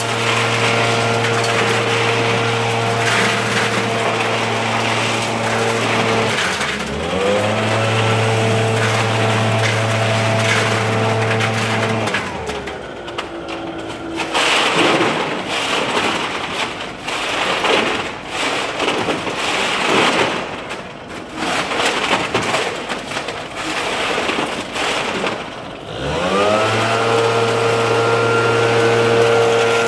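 Gas leaf blower's small two-stroke engine running steadily at high speed. About six seconds in it dips and revs back up, and about twelve seconds in it drops away, leaving irregular knocks and rustling. Near the end it revs back up and holds steady.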